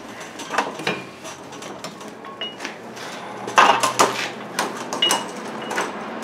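Metal hand tools clinking and knocking at a car's front brake caliper as its bolts are worked loose, scattered short clicks with a louder cluster of knocks about three and a half seconds in.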